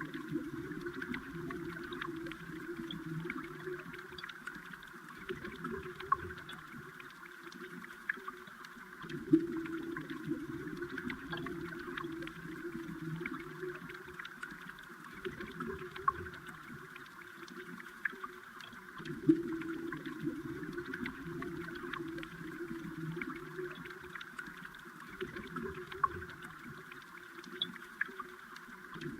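Flowing stream water heard underwater: a steady bubbling, gurgling wash with scattered small ticks and clicks, and a sharper click about every ten seconds.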